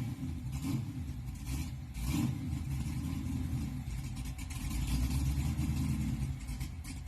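Car engine running, its revs swelling about two seconds in and again around five seconds, then easing off near the end.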